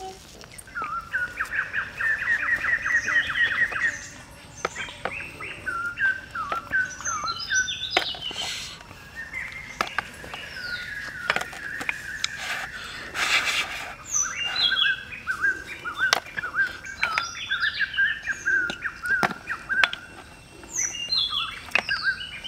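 Birds chirping and calling, with a fast trill of repeated notes for about three seconds near the start and many short rising and falling chirps after it. Scattered light clicks and a couple of brief hisses are heard under the birdsong.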